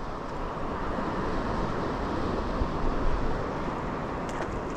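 Wind noise on the microphone over the steady wash of sea waves, with a few faint ticks near the end.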